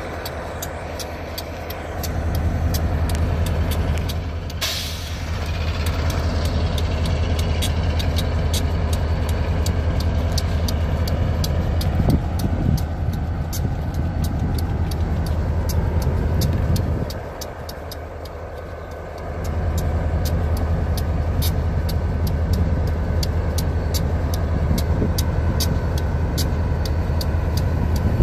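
Diesel locomotives led by an EMD GP40, the GP40's turbocharged 16-cylinder engine giving a deep low rumble as the engines work at low throttle to creep forward. The rumble drops away for about two seconds past the middle, then returns. There is a brief hiss about five seconds in and a run of light clicks throughout.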